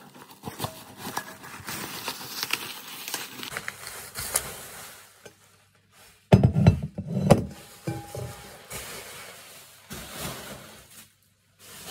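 Bubble wrap crinkling and crackling as it is pulled off a packed ceramic mixing bowl, then, about six seconds in, several loud knocks and thuds as the bowl is lifted and bumped close to the microphone, followed by lighter rustling.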